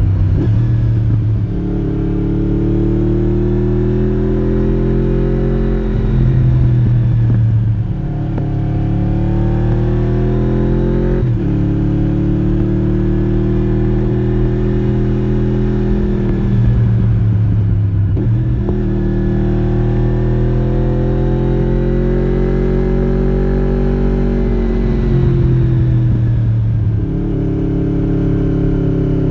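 Honda VFR750 (RC36) 90-degree V4 engine through a modified original muffler, heard onboard while riding. The engine note climbs and falls several times, with sudden jumps in pitch at the gear changes.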